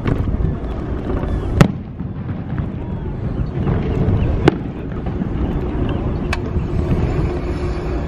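Fireworks going off, several sharp bangs spaced a second or two apart, the loudest about one and a half seconds in, over a steady low rumble of wind and motion from a moving scooter.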